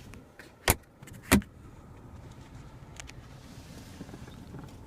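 Two sharp clicks about two-thirds of a second apart, from the car's center console storage compartment lid and latch being worked, followed by a faint steady hiss with a couple of light ticks.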